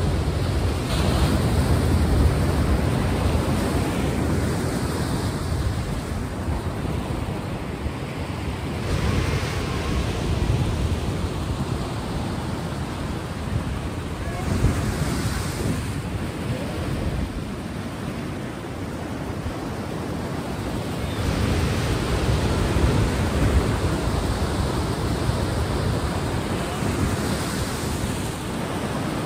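Sea waves on a shore: a continuous rush of surf that swells and ebbs every several seconds.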